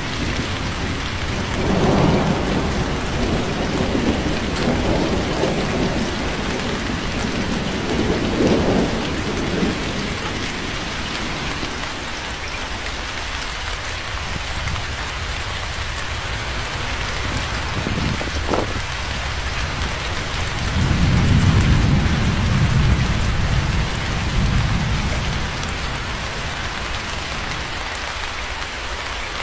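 Steady rain falling, with rolling rumbles of thunder: one starting about two seconds in and lasting several seconds, another about twenty seconds in.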